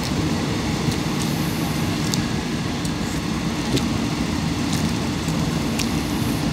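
Steady rumble of a passenger train running, heard from inside the carriage, with a few short, sharp ticks now and then.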